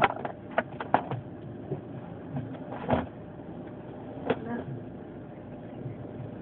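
Steady rush of sandstorm wind around a car, broken by a handful of sharp knocks, the loudest near the start and about three seconds in.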